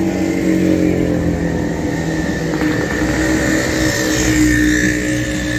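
A motor vehicle's engine running steadily, with a thin high whine over it.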